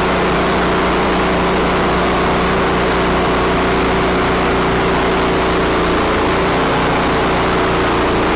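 A sawmill's engine running steadily at a constant pitch, with no change in load or speed.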